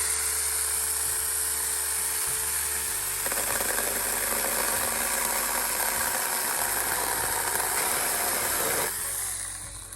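Cordless 20-volt Saker mini chainsaw running: a steady electric motor whine, then from about three seconds in a rougher, grittier buzz as the chain bites through a thorny limb, until the motor cuts out and winds down near the end.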